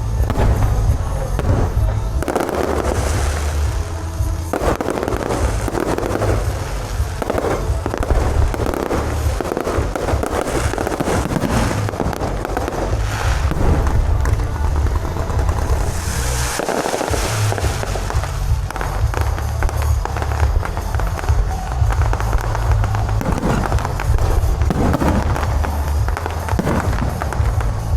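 A continuous barrage of fireworks and firecrackers: dense crackling and popping over deep, repeated booms, thinning out briefly about two-thirds of the way through before picking up again.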